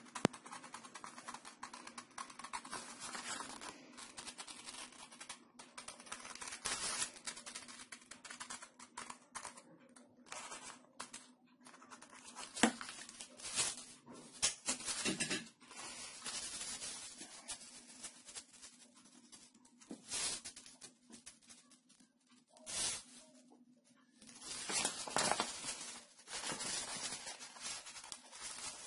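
Scissors cutting a printed paper pattern and the paper sheet rustling as it is handled, in irregular bursts with a sharp click partway through, over a faint steady low hum.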